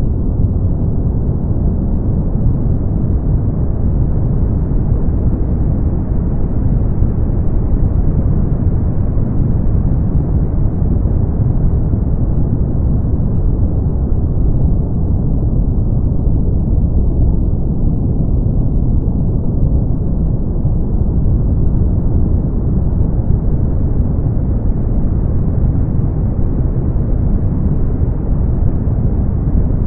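Brown noise: a steady, deep rushing hiss, heavy in the low end with little above the midrange, dulling slightly around the middle and brightening again.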